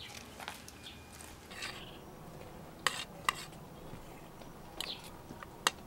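Dishes and cutlery being handled, giving a few sharp clinks spread a second or two apart over a faint background, the clearest about halfway through and near the end.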